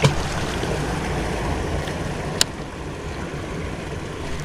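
Steady rush of water churning through a concrete spillway, with one sharp click about two and a half seconds in.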